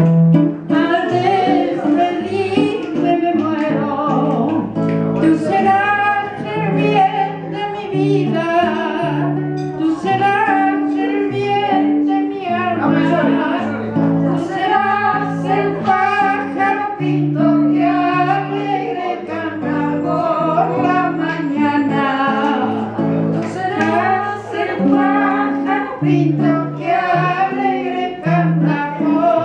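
A woman singing into a microphone over instrumental accompaniment. The accompaniment holds steady low notes that change every second or so.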